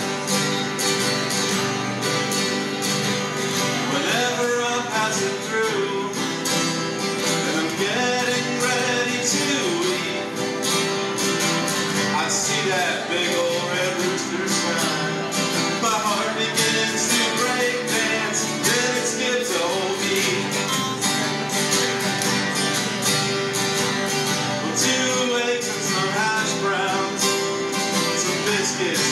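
Three acoustic guitars strumming a country tune, with men singing over them.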